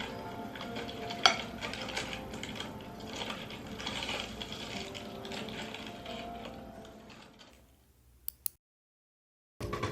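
Small clicks and clatter of objects being handled, with one sharp click about a second in, over soft background music. The sound fades out near the end, and after two faint clicks it drops to silence.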